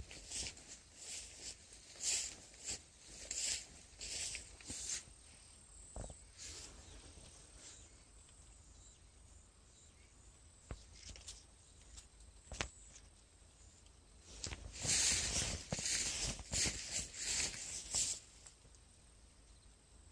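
Rustling and crunching in short bursts, a few a second, with a quieter stretch in the middle broken by a couple of sharp snaps.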